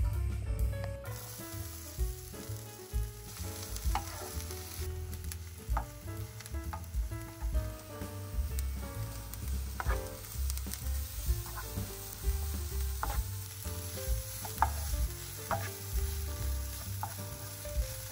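Food frying in oil in a pan, a steady sizzle that comes up about a second in, with a utensil stirring and knocking against the pan now and then.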